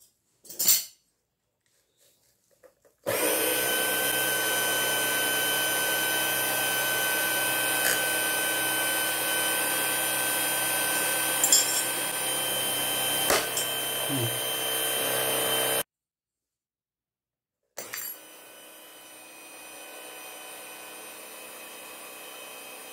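Small homemade mini wood lathe's electric motor running steadily while turning a wheel of hard sonokeling rosewood. It cuts off suddenly partway through, and a quieter steady run follows a couple of seconds later.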